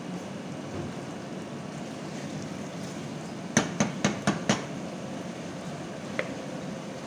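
Wooden spoon stirring liver masala in a metal saucepan over a steady hiss, with five quick knocks of the spoon against the pan a little past halfway and a faint tap near the end.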